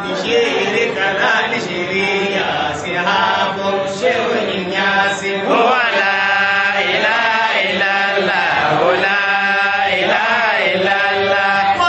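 Men chanting Islamic dhikr (zikr) into handheld microphones, long sung lines that rise and fall without a break.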